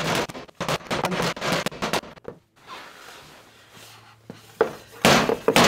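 A rubber mallet taps rapidly on a wooden cabinet panel, a quick run of knocks over the first two seconds, to knock the stuck panel loose. Near the end comes a loud harsh burst of noise as the panel works free.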